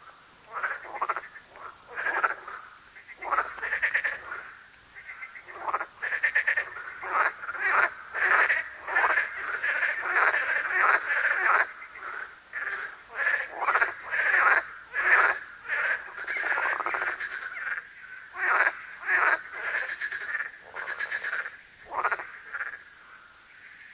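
A water frog croaking in a long series of rapid, rattling calls, some short and some drawn out over a second or more.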